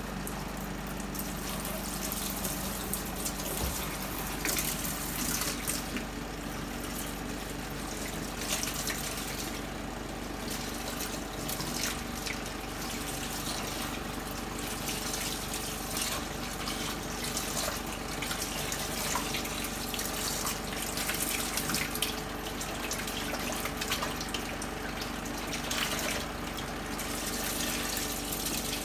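Water from a hose running steadily into the plastic wash tub of a mini twin-tub washing machine, rinsing the tub out.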